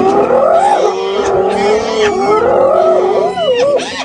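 A pack of spotted hyenas calling all at once: many overlapping squealing, wavering calls that rise and fall in pitch, the excited calling of hyenas contesting a kill with a lion.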